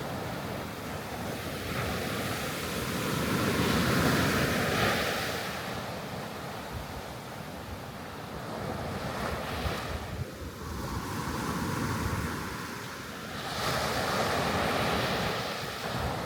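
Sea waves washing onto the shore, the surf swelling and easing off, loudest about four seconds in and again near the end, with wind rumbling on the microphone.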